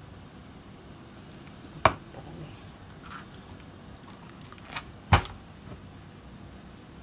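Two sharp knocks about three seconds apart as a glass thyme jar is handled on a plastic cutting board, with faint rubbing of hands working spices into a whole sea bream.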